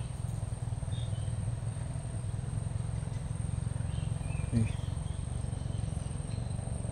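Wind rumbling on the microphone, with a thin steady high whine throughout and a few faint bird chirps about a second in and again around the middle.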